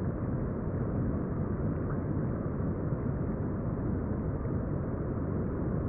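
Steady, muffled rush of river water heard from underwater, dull and low with no treble.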